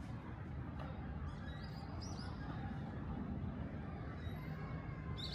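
Outdoor ambience: a steady low background hum with a few short high bird chirps, a cluster about a second and a half in and another near the end.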